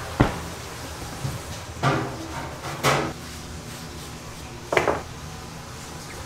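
Four short sharp knocks and clatters at irregular intervals from baking tools and a dough tub being handled on a wooden work bench, over a steady low kitchen hum.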